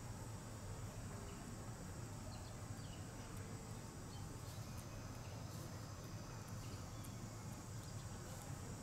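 Quiet outdoor ambience: a steady low hum with scattered faint chirps and ticks.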